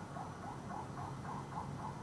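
An animal chirping: an even run of short, high chirps, about four a second, over a faint low hum.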